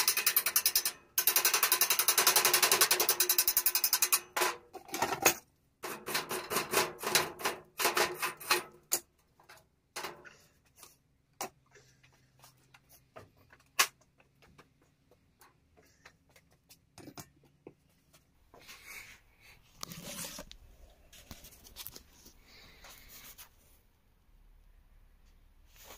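Small hammer tapping rapidly on a steel frame, fast even metallic clicks for about four seconds. Then slower separate knocks until about nine seconds in, thinning to scattered faint clinks.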